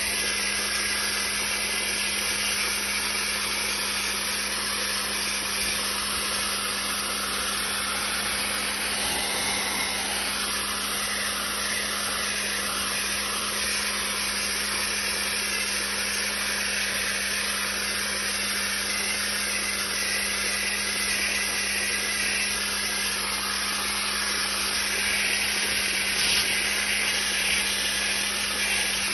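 Dry-ice blasting gun firing a continuous jet of compressed air and dry-ice pellets at a painted steel panel to strip graffiti: a steady, unbroken hiss, a little louder and brighter near the end, over a steady low hum.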